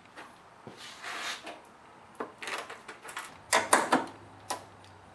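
A plastic engine shroud being fitted and fastened with a ratchet and socket: a few separate clicks and knocks of plastic and metal tool, with a quick cluster of clicks about three and a half seconds in.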